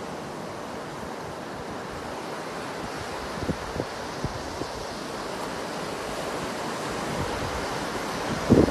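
Ocean surf breaking on a beach with wind buffeting the microphone: a steady rushing that slowly grows louder, with a few brief knocks, the strongest near the end.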